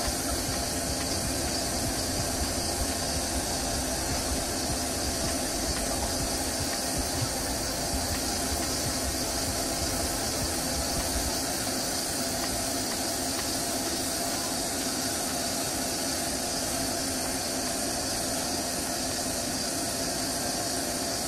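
Doosan CNC lathe running: a steady machine hum with hiss and a few steady tones, and a low rumble that eases off about halfway through.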